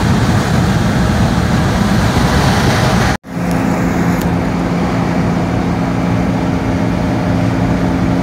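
Road and engine noise inside a vehicle driving on a highway. The sound drops out for an instant about three seconds in, then returns as a steady drone with a low, even hum.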